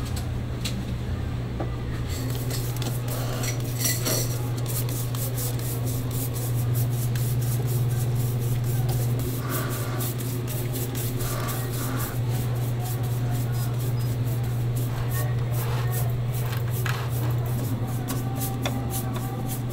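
Chimney-cake rotisserie oven running with a steady low hum, with scattered light clinks and knocks of metal spits and utensils.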